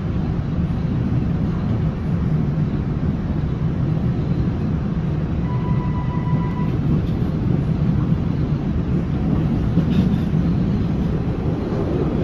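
Steady rumble of a PATH PA5 rapid-transit car running at speed, heard from inside the car, with a brief high steady tone about halfway through.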